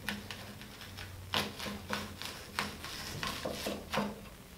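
One-handed rocker knife cutting through a red onion on a wooden cutting board: about a dozen irregular, crisp crunches of the blade through the onion and against the board.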